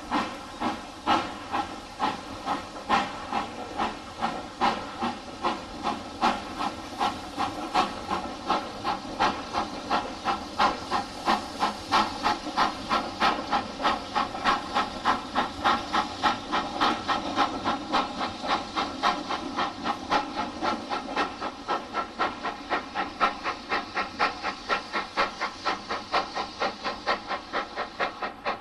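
Steam locomotive hauling a train of coaches away: regular exhaust chuffs over a steady hiss of steam, the beats coming faster as it gathers speed.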